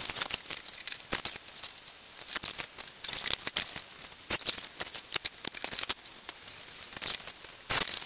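Horseshoe crabs being handled: irregular clicks, taps and scrapes of their hard shells against a wet table and against hands, with a longer scrape near the end.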